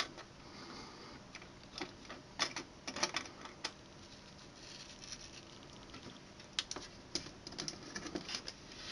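Scattered faint clicks and taps of metal and plastic: a motherboard CPU socket's load plate and retention lever being closed and latched down over the processor.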